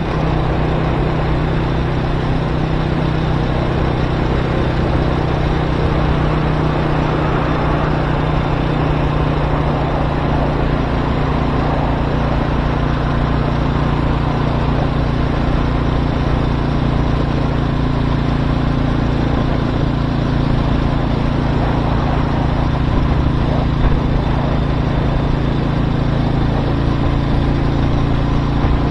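Motorcycle engine running at a steady, unchanging pitch under a constant rush of wind noise.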